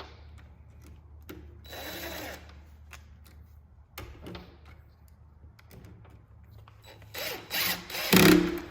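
A cordless drill running in short bursts on door-lock hardware, with clicks of the lock parts between them; the loudest bursts come near the end.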